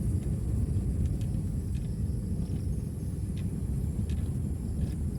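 Low, steady rumble of a vehicle travelling over an unpaved dirt road, with wind buffeting the microphone. A faint, steady high hiss runs underneath.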